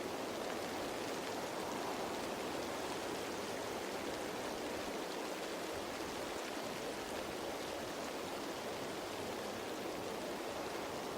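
Steady rain falling on leaves: a dense, even hiss of many drops that holds at one level without letup.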